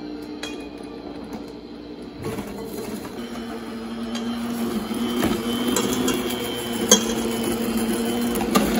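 Sunbeam stand mixer running, its beaters creaming butter and sugar in a stainless steel bowl: a steady motor hum that grows louder about three seconds in, with a couple of sharp clicks in the second half.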